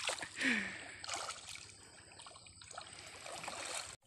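Shallow river water sloshing and trickling around a person wading and reaching into it by hand. It is louder in the first second, then fainter.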